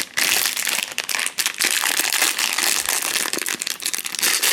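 Packaging of a blind-egg collectible being handled and opened by hand: continuous crinkling and crackling of a wrapper.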